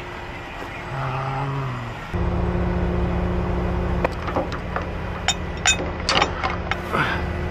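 A heavy tow truck's engine running with a steady drone that comes in sharply about two seconds in, and from about four seconds in, repeated sharp metal clanks of shackles and rigging being handled.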